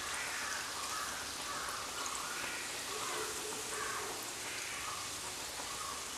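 Hot oil sizzling steadily around dough cakes frying in a shallow pan.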